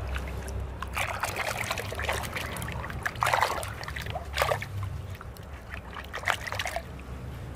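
Water sloshing and splashing irregularly in a plastic bucket as a hand rubs and swishes small plastic toy tools under the surface to wash off mud.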